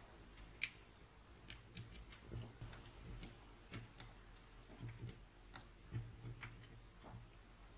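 Faint, irregular clicks and light knocks of a hand screwdriver turning a screw into the cordless drill's plastic housing, with parts being handled.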